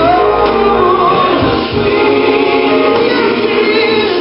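Gospel song with singing, playing continuously at a steady level.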